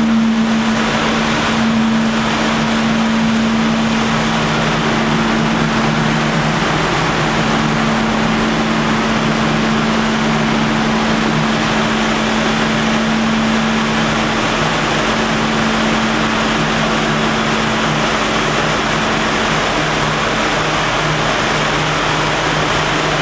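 Loud, steady machinery noise in a ship's engine room, with a constant hum at two pitches running under it.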